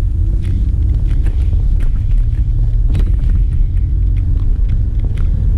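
2006 Toyota Avalon on the move, a steady low rumble of road and engine noise with scattered light clicks and knocks.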